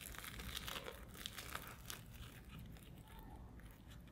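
Crisp crust of a fried potato dough ball crackling and tearing as it is pulled apart by hand. The crackles come thick over the first couple of seconds, then thin out.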